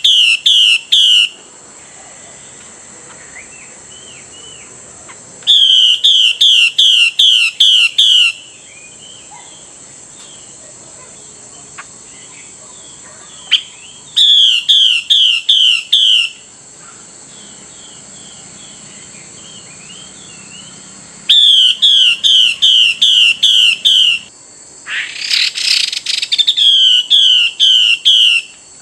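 Female Chinese hwamei calling: loud series of six to eight quick, down-slurred whistled notes, repeated about every seven seconds, with softer chirps between them. Just before the last series comes a single harsh, rasping burst.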